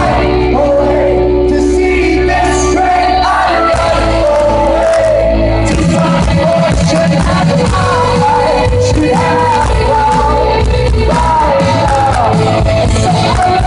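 Live rock band playing with sung vocals, loud and steady, in a large concert hall.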